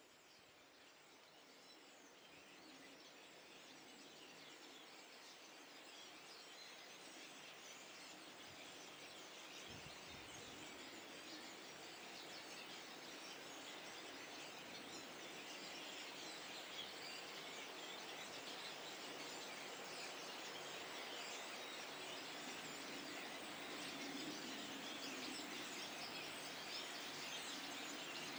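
A flock of starlings chattering: a dense wash of many overlapping chirps and whistles, growing steadily louder as it fades in.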